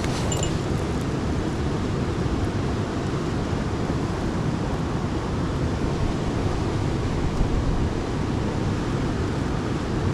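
Steady rushing of a mountain stream, an even, unbroken noise strongest in the low range.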